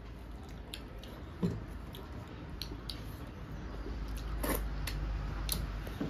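Eating with the hands: fingers mixing rice and curry on metal plates, with chewing and scattered small clicks and taps. A soft thump about one and a half seconds in is the loudest sound, with two sharper clicks near the end.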